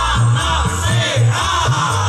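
A men's choir singing a lively song over an amplified backing track with a heavy, pulsing bass beat.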